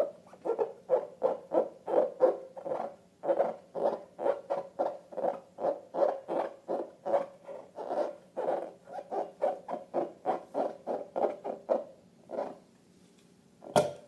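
Rapid, regular squeaky pulses, about three a second, that stop about twelve seconds in, followed by a single sharp click near the end.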